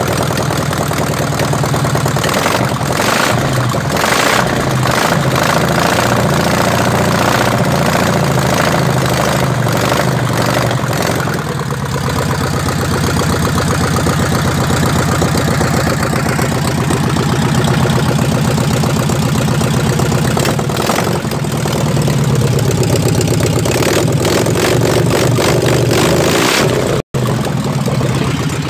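Volkswagen Fusca (Beetle) air-cooled flat-four engine running loud with its exhaust removed, the engine note open and unmuffled, the revs shifting at times. The sound cuts out for a moment near the end.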